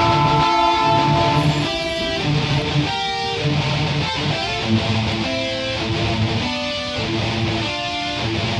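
Background rock music with strummed electric guitar over a steady beat, the chords changing about once a second.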